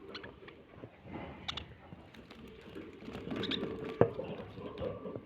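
Budgerigars' soft, scratchy chatter mixed with rustling and small clicks, with one sharp tap about four seconds in.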